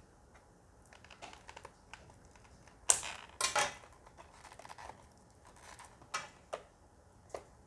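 Shrink-wrapped plastic packaging being handled and pulled open: scattered clicks and short crinkling rustles, loudest about three seconds in.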